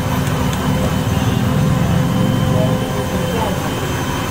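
Steady low drone of running machinery with a faint steady hum, even throughout.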